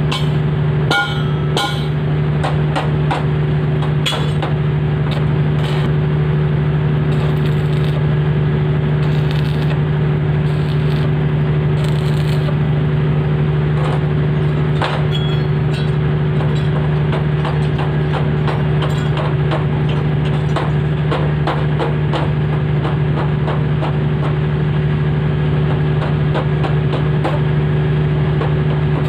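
Arc welding: irregular crackling and spitting from the arc over a steady, low machine hum.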